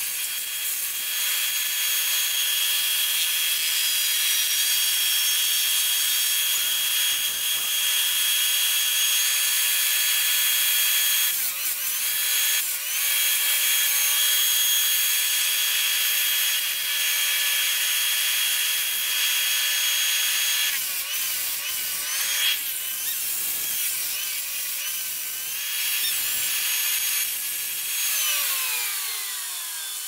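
Chainsaw running steadily as it cuts into an ash tree. Its pitch wavers a little past the middle and falls away near the end as the saw eases off.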